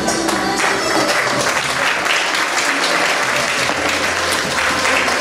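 Audience applauding as a song ends, with music starting up again under the clapping near the end.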